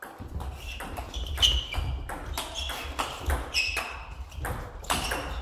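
Table tennis rally: the ball clicking quickly back and forth off the rackets and bouncing on the table, about four hits a second. Short high squeaks come among the hits.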